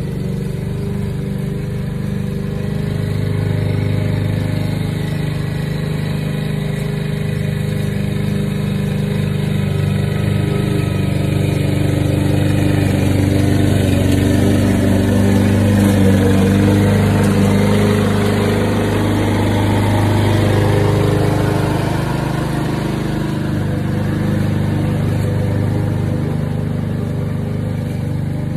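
Walk-behind gasoline lawn mower's small engine running steadily while cutting grass, growing louder in the middle as the mower comes close and fading again as it is pushed away.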